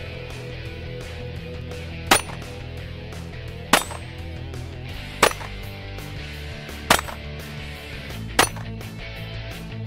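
Five pistol shots fired at an even pace, about one every second and a half, over background music.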